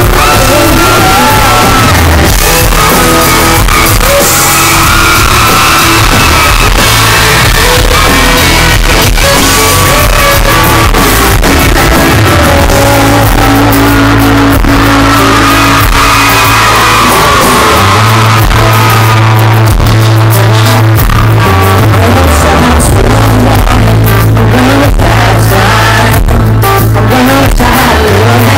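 Live band playing loud country-pop in a hall: a male lead vocal over acoustic guitar, electric guitar, keyboard and drums, recorded close to full scale.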